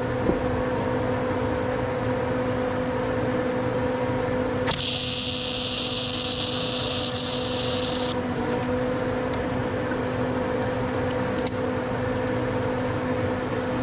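MIG welder arc crackling and hissing for about three and a half seconds, starting about five seconds in, as a short weld is laid on a steel part at an engine cylinder head. A steady electrical hum runs underneath.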